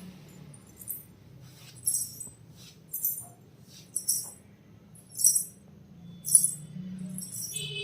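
Payal, ankle bracelets hung with small bells, jingling in short shakes about once a second as the feet move.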